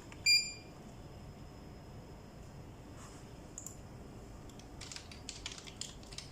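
A short electronic beep about a third of a second in, as the KVM switch changes computers, then typing on a computer keyboard, a quick run of key clicks starting near the end.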